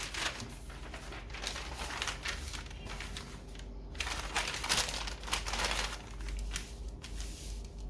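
Handwriting: a pen or marker scratching across a writing surface in short, irregular strokes with brief pauses.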